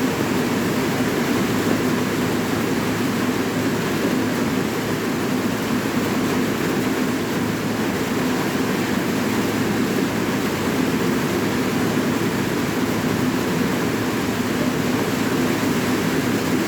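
Steady rain falling, a continuous even rush of noise with no single drops or gusts standing out.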